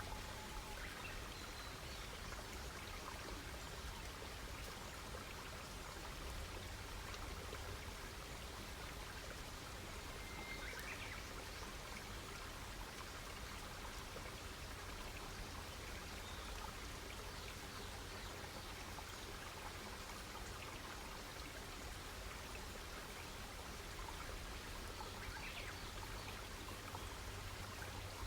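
Wood campfire crackling steadily, a continuous hiss scattered with small pops and snaps.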